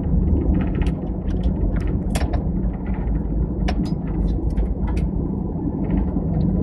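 Airliner cabin noise on the ground just after landing: a steady low rumble, with scattered short clicks and rattles over it.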